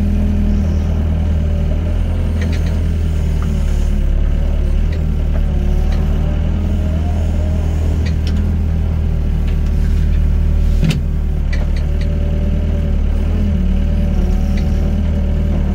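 Excavator diesel engine running steadily under load while digging and loading sand. A few sharp metallic clanks come through, the clearest about eleven seconds in.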